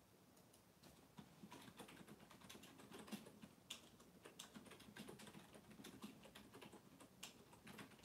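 Faint, irregular clicks and taps in quick, uneven runs, starting about a second in, over a quiet room.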